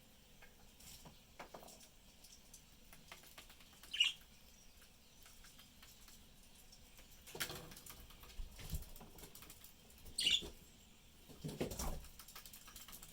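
Pet budgies chirping briefly twice, a few seconds apart, amid light clicking, scratching and rustling.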